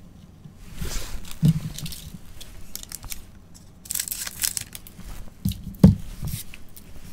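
Foil wrapper of a 2022 Topps Series 1 baseball card pack crinkling as it is handled, then snipped open with scissors about four seconds in. A loud thump comes shortly before the end.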